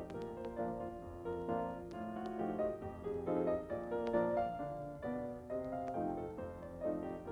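Piano music, a continuous run of short, quickly struck notes.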